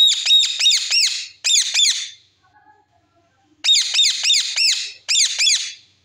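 Ringneck parakeet screeching: two bouts of rapid, repeated shrill calls, about four a second, each call rising and falling in pitch, with a pause of over a second between the bouts.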